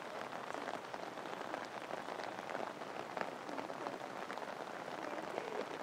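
Steady, dense spatter of falling water: many small irregular drop impacts over an even hiss.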